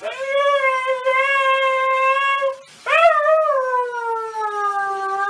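A dog howling: one long, steady howl, then after a short break a second howl that rises at its start and slowly sinks in pitch.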